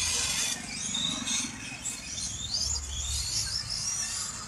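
Small birds chirping and twittering in quick, curling high whistles, over a low rumble.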